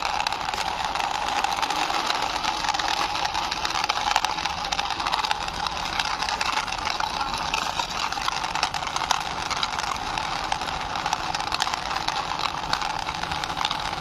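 Plastic toy car's hard plastic wheels rolling slowly over a rough stone ledge as it is pushed by hand: a steady grinding rattle, dotted with small clicks.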